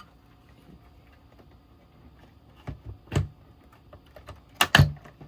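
Sharp clicks and knocks of the oscilloscope's plastic front cover and button panel being handled and pressed into place: a few light knocks about halfway through, then a louder double knock near the end.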